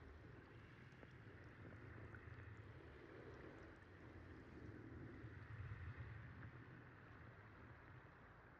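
Near silence: a faint, muffled underwater rumble, steady and low.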